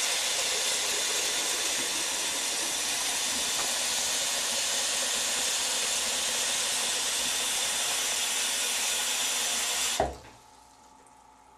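Bathroom sink tap running, a steady stream of water splashing into the basin as it fills. Near the end the lever is pushed shut with a short knock and the water stops suddenly.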